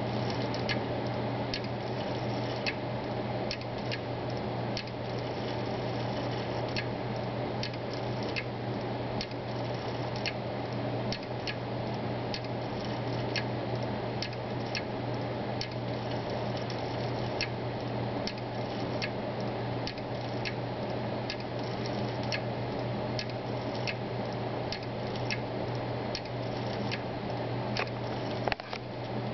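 Seagate Barracuda 1 TB hard drive spinning with a steady hum while its heads click in quick, irregular ticks, one to three a second. The drive is brand new, and its owner is unsure whether this clicking is normal.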